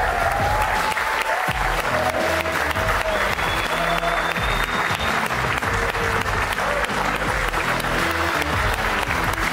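A small audience clapping steadily over background music with a melody and bass line.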